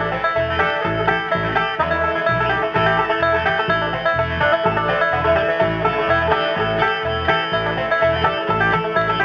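Live bluegrass band playing an instrumental: rolling banjo picking over guitar, with bass notes pulsing on the beat about twice a second.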